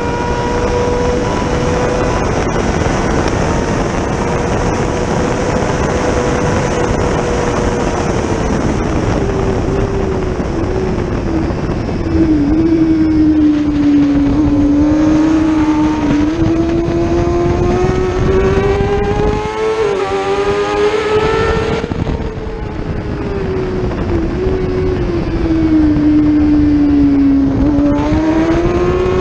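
Racing motorcycle engine at high revs in a 600cc road race, heard onboard over heavy wind rush. Its pitch falls as the bike slows for a corner about midway, climbs again under acceleration, falls a second time near the end and then rises again.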